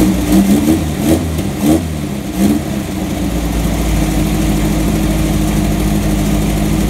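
Air-cooled Volkswagen flat-four engine running on a bench stand out of the car. Its throttle is blipped in several quick revs over the first three seconds, then it settles to a steady idle.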